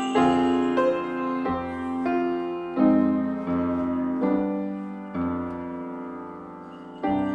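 Slow piano music: notes and chords struck every second or so and left to ring, fading lower before a fresh chord is struck near the end.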